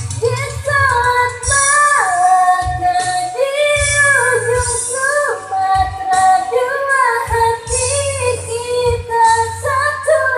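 A high female or child voice singing a slow Indonesian pop melody with long held, sliding notes over a backing track with a pulsing bass and a shaking tambourine-like high accent.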